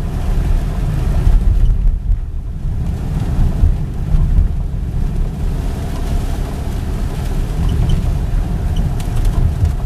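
Car engine and road noise heard from inside a moving car: a steady low rumble.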